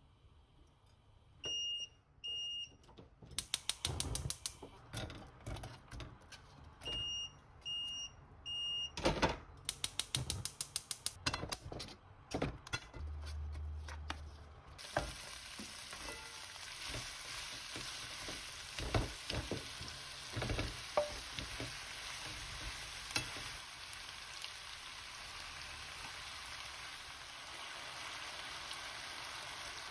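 Stir-fry in a non-stick wok: knocks and clatter as sliced onion, green onion and other ingredients go in, then, from about halfway, a steady sizzle of the vegetables and sundae frying in oil, with the scrape and knock of stirring. Short electronic beeps sound twice near the start and three times a few seconds later.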